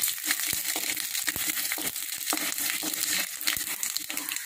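Tempering in a stainless steel kadai: mustard and cumin seeds with chana dal and urad dal sizzling in hot oil, stirred with a wooden spatula. A steady hiss with many short, sharp crackles throughout.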